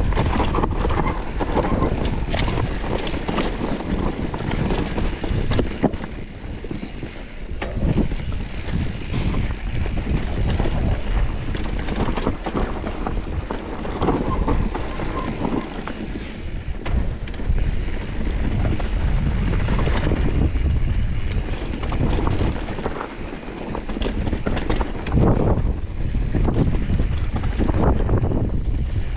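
Wind buffeting the camera microphone in a steady low rumble, with scattered knocks and rattles from moving along the rocky trail.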